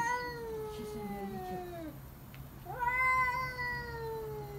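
Domestic cat yowling: long drawn-out howls, each sliding slowly down in pitch. One dies away about two seconds in, and the next begins under a second later. These are the warning yowls of a cat standing off against another cat.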